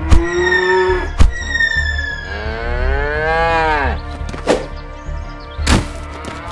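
Cattle mooing: a short call near the start, then a long moo that rises and falls in pitch, with four sharp knocks spread through it.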